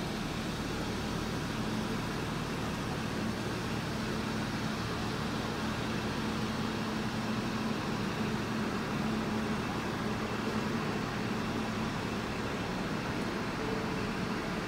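Steady mechanical hum over even background noise at a railway platform beside standing heritage passenger carriages, with no sudden sounds.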